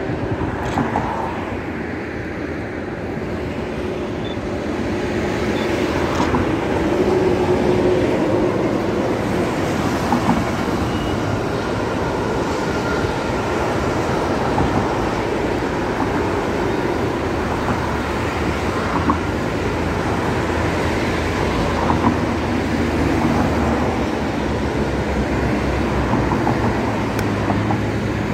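Long intermodal container freight train rolling past on the rails: a steady rumble and rattle of wagons that grows louder a few seconds in and then holds, mixed with motorway traffic noise.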